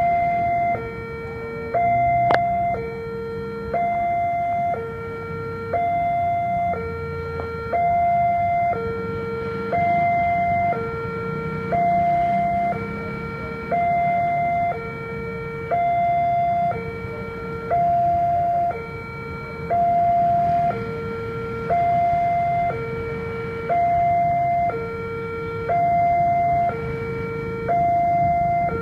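Railway level-crossing warning alarm sounding a steady electronic two-tone signal, switching between a higher and a lower note about every second, with the barrier down to warn that a train is approaching. A low rumble runs underneath, and there is one sharp click a couple of seconds in.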